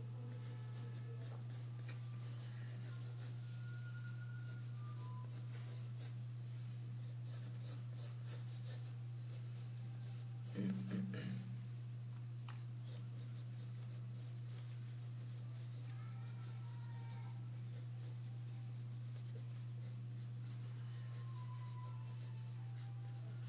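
Pencil sketching on paper: graphite lead scratching in short strokes as a drawing is built up, over a steady low hum. A brief louder sound comes about ten seconds in.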